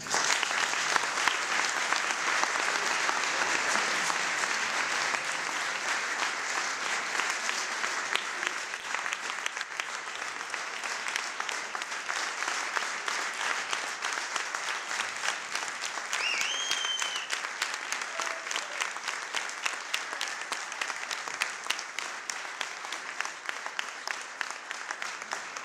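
Audience applauding at length, loudest at first and slowly tapering off, with a brief high tone about two-thirds of the way through.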